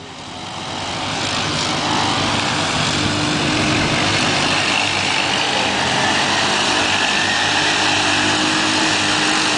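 Several ATV engines running hard as the quads race through a mud pit, the engine noise swelling over the first couple of seconds and then holding steady.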